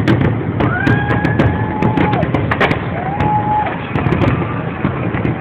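Fireworks bursting overhead in a rapid string of sharp cracks and bangs over a steady low rumble. Twice, near 1 s and again near 3 s, a held high tone rises in, stays steady for about a second, then drops away.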